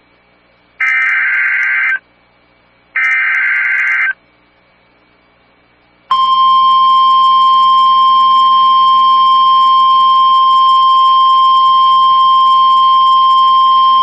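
NOAA Weather Radio Emergency Alert System signal. Two roughly one-second bursts of the SAME digital header's warbling data tones come first. About six seconds in, the steady single-pitch 1050 Hz weather radio warning alarm tone starts and holds. This sequence marks the start of a Flash Flood Warning broadcast.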